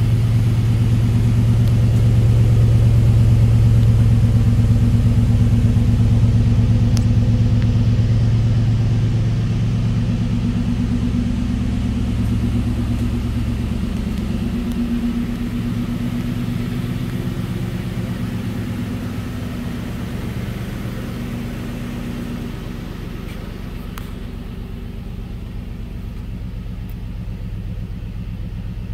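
2005 Nissan Armada's V8 idling steadily, a low even hum that grows gradually fainter over the second half.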